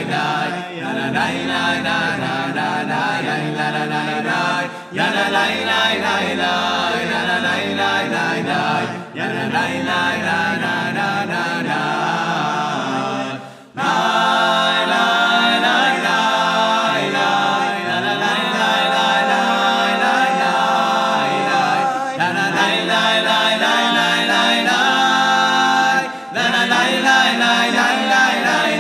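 Male a cappella ensemble singing in close harmony, several voices together with no instruments. The phrases break off briefly a few times, and a deep bass line under the chords drops out about halfway through.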